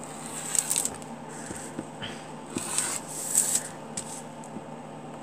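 Rotary cutter rolling through a thin translucent pattern sheet on a cutting mat, in a few short scratchy strokes with rustling of the sheet.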